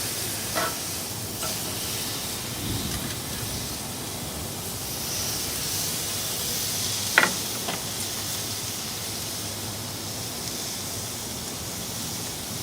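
Steady hiss of heavy thunderstorm rain, with a faint low rumble about three seconds in and a single sharp click about seven seconds in.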